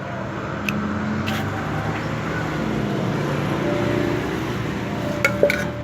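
A motor vehicle running, a steady low engine hum with traffic noise, with a few light clicks or knocks.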